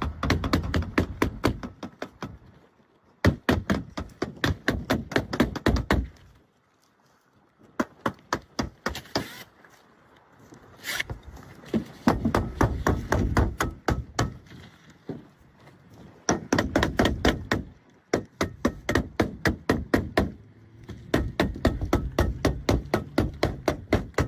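Asphalt shingles being nailed down on a roof: runs of rapid sharp strikes, about five a second, broken by short pauses.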